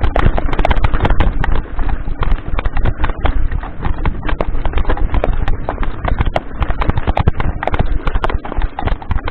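Mountain bike rattling and clattering over a loose, rocky trail: a dense run of irregular knocks and jolts over a steady low rumble.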